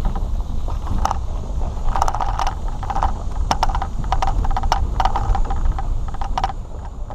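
A fishing boat and its trailer towed over a gravel road: a steady low rumble of road noise, with frequent irregular rattles and clanks as the boat and trailer jolt over the bumps.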